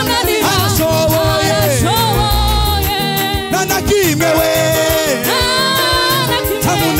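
Live gospel worship song: a singer's voice leads over a steady drum beat and bass, with long held, gliding notes.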